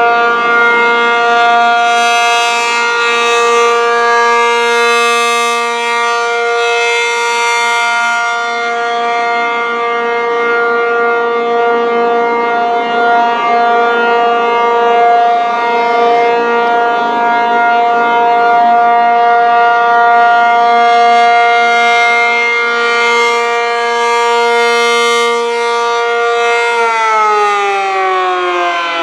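ACA P-50 rotating outdoor warning siren sounding its steady alert tone, swelling and fading as the horn turns. About two seconds before the end the pitch begins to fall as the siren winds down.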